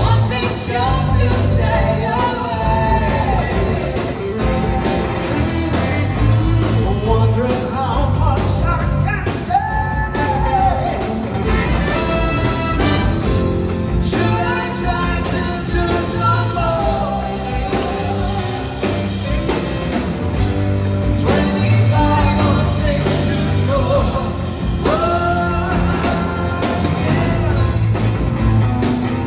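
Live rock band with a horn section playing on stage, a singer's voice carrying the melody over a steady drum beat, heard in a large hall.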